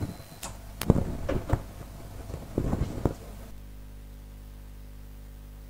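A few sharp knocks and clattering handling noises, then from about three and a half seconds in a flat, steady low hum.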